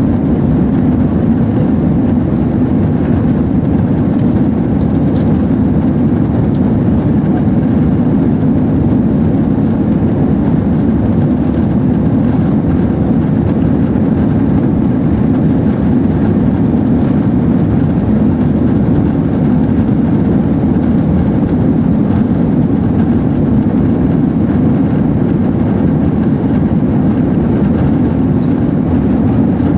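Steady jet engine and airflow roar heard inside the passenger cabin of an Airbus A330-200 during its departure: a loud, even low rumble that does not change.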